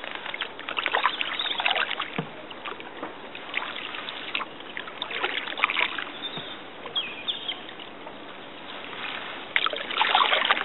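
Canoe paddle strokes on flat calm water: short splashes and drips from the paddle every second or few, the largest near the end.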